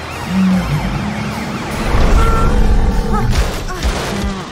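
Cartoon police siren wailing rapidly up and down over a vehicle engine rumble.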